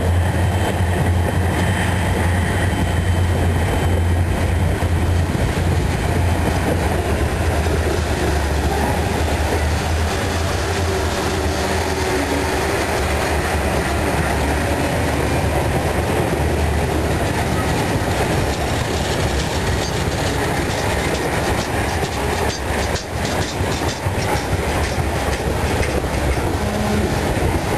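Freight train cars rolling past at speed: a steady rumble with the wheels clacking over rail joints, the clicks coming through more clearly in the second half. A strong low hum fades out over the first several seconds.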